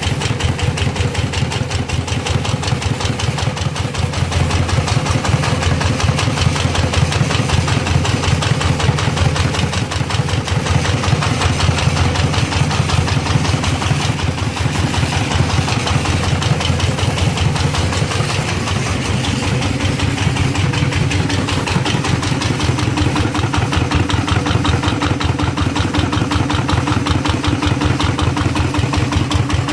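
Diesel engine running steadily at idle, with a rapid, even beat of firing pulses. A faint steady hum joins about two-thirds of the way through.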